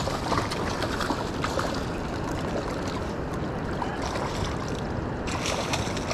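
Rush of flowing river water with scattered splashes from a hooked northern pike thrashing at the surface.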